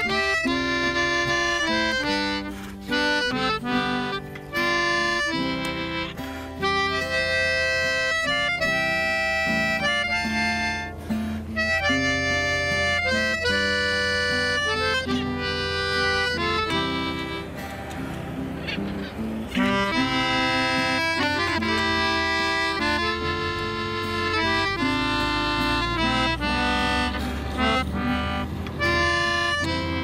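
Instrumental background music: a melody in held reed-like notes over a steady low bass, easing off briefly about eighteen seconds in.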